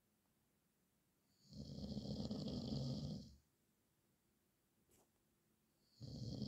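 A man snoring: one drawn-out snore of about two seconds begins a second and a half in, and the next begins near the end, with near silence between breaths.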